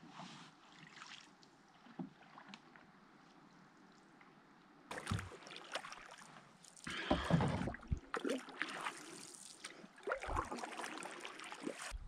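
Water sounds of a canoe being paddled: faint at first, then louder, irregular splashes and swishes of paddle strokes from about five seconds in.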